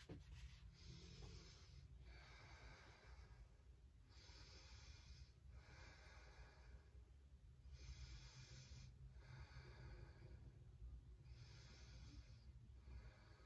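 Faint slow breathing of a woman holding a yoga pose: soft, hissy breaths in and out, about seven over the stretch, each lasting a second or so, with short pauses between them.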